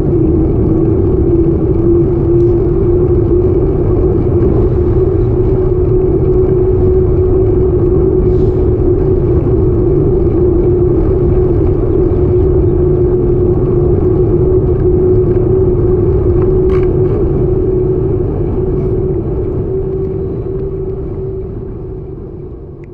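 Wind rushing over the microphone of a handlebar-mounted camera on a road bicycle, with tyre noise on asphalt: a loud, steady low rumble carrying a steady hum, fading out near the end.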